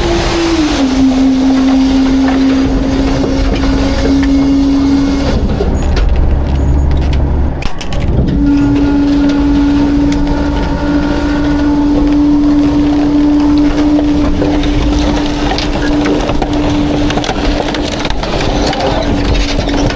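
Heil Half/Pack Freedom garbage truck's hydraulic packer compacting construction debris in the hopper, with boards, pallet wood, cardboard and foam cracking and crunching. Under it runs the steady drone of the truck's engine and hydraulics, which cuts out for a few seconds about five seconds in and then comes back.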